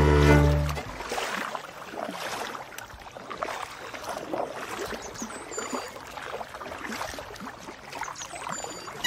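Background music cuts off within the first second. After it comes the irregular splash and trickle of water around a canoe being paddled down a shallow river, with paddle strokes dipping and water running along the hull.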